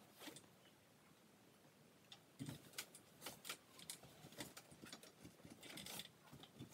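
Near silence: room tone with faint scattered clicks and taps from about two and a half seconds in.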